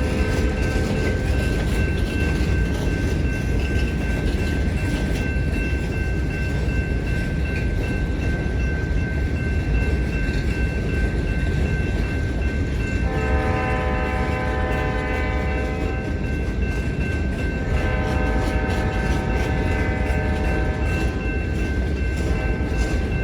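Lake State Railway freight train's diesel locomotives rumbling steadily, with the horn sounding: a blast ends about a second in, two long blasts follow after a long gap, and another begins near the end. A thin steady high whine runs throughout.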